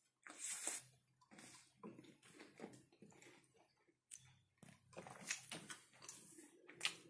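A slurping sip from a coffee cup, then close-up chewing and mouth sounds. Near the end, light clicks and knocks as the cup and its lid are handled.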